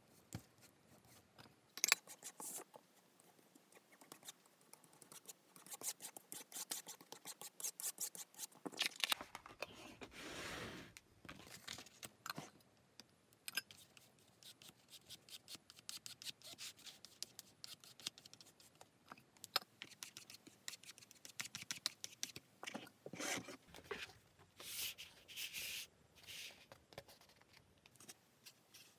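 Close, quiet handwork on paper and cardboard: a plastic spatula scraping glue across a cardboard pattern, then sheets of Webtex reinforcement being handled, peeled and rubbed down flat by hand, with many small scratches, rustles and taps on the cutting mat. A longer tearing-like rustle comes about ten seconds in.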